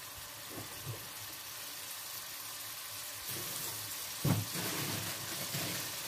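Curry paste sizzling in hot oil in a metal kadhai: a steady frying crackle that grows a little louder about three seconds in. A single knock just after four seconds.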